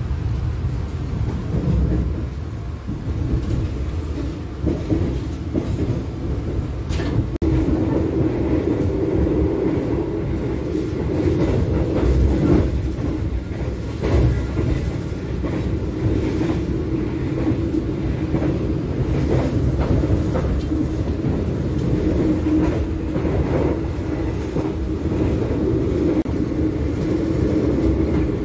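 Passenger train carriage running at speed, heard from inside: a steady low rumble of wheels on rail with scattered clicks from the track. A steady hum grows stronger about seven seconds in.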